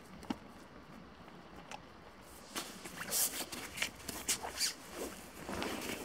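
Footsteps crunching through dry autumn leaves and twigs on the forest floor. The irregular crunches start about halfway through, after a single sharp snap near the start.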